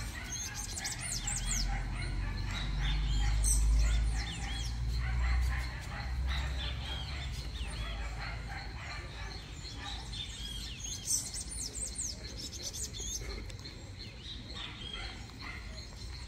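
Small birds chirping throughout, many short quick calls, busiest in the first couple of seconds and again about ten seconds in. A low rumble underneath is loudest about four seconds in and fades by six seconds.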